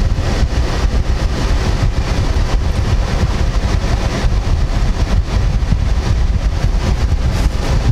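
Steady low rumbling of a car idling with its window open, with wind buffeting the microphone.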